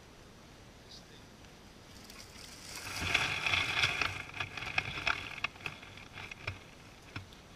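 Dry grass and leaves rustling and crackling as a wooden hive box is shifted into place beside the camera, loudest about three to four seconds in, then scattered crackles as a gloved hand works in the litter below the box.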